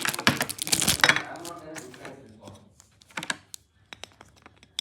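Packaging being handled during an unboxing: a dense run of crinkling and clicking for about the first second, then scattered light clicks and taps.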